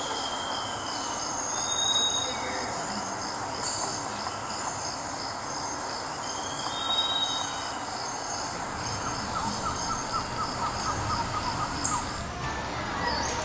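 Outdoor ambience: birds giving high, thin whistled calls, some sliding up or down, over a steady, pulsing high-pitched trill and a constant background hum. A quick run of small chirps comes about two thirds of the way through.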